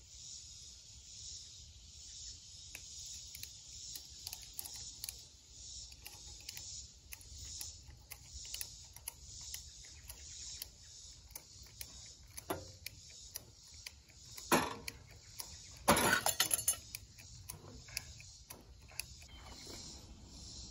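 Scattered metallic clicks and knocks from hands working on the split tractor, with one loud knock about two-thirds of the way in and a short rapid rattle of clicks just after it, over a steady high hiss that swells and fades.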